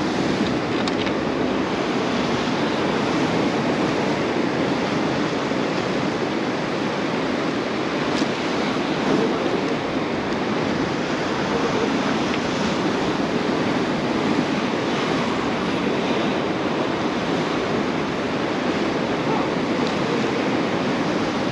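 Ocean surf washing steadily against the shore, a continuous rushing wash with no break.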